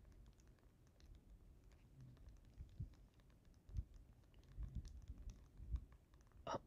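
Faint, irregular clicking of buttons on a Nintendo Switch being played, with a few soft low bumps from handling.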